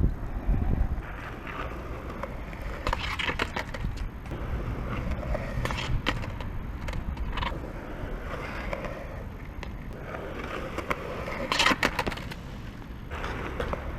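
A skateboard rolling with a steady wheel rumble, broken by several sharp clacks of the board, the loudest about half a second in and near the end. It is a beginner's attempts at riding.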